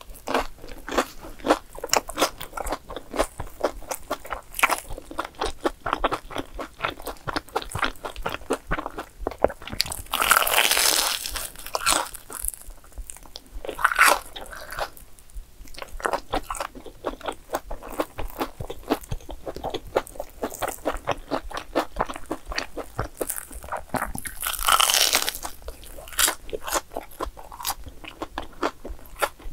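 Close-up crunching and chewing of a crisp, crumb-coated fried cheese ball: a steady run of small crunches with a few louder, longer crunches spread through.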